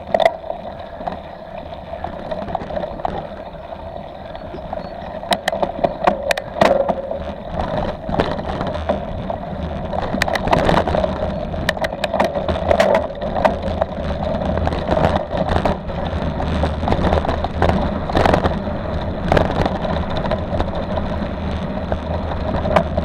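Mountain bike riding down a rough dirt trail, heard through a bike-mounted action camera: steady tyre and wind rumble with many sharp rattling knocks over bumps. The ride gets rougher and louder from about five seconds in.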